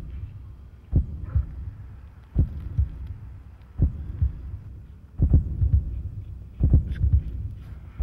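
Slow heartbeat sound effect: a deep low beat recurring evenly about every one and a half seconds over a low rumble.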